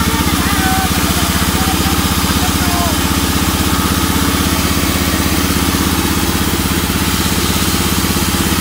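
Engine-driven band sawmill running steadily with a fast, even putter while its blade cuts lengthwise through a teak beam.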